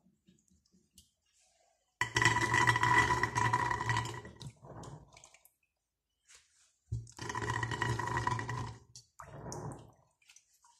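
Two handfuls of wet, soaked chickpeas dropped into a stainless steel pot, each a dense rattling patter of about two seconds with water dripping, the first about two seconds in and the second about seven seconds in. A short, quieter patter follows each one.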